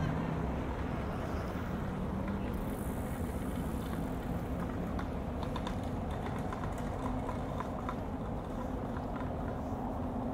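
An engine running steadily with a low hum, over outdoor street noise; scattered light clicks and taps come in about four seconds in.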